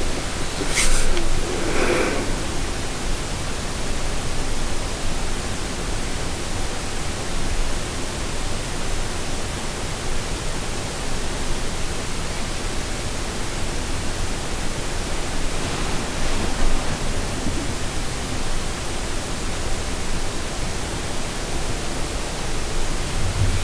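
Loud, steady, even hiss that fills the whole range from low to very high, with no rhythm and no pitch that comes and goes. The occupant takes it for a strange buzzing, whistling noise in her bedroom. Two faint brief sounds stand out about one and two seconds in.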